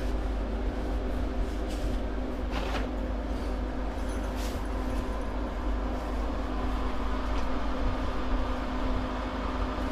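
A steady low mechanical hum with a steady mid-pitched tone over it, and a few faint knocks and rustles of people moving about.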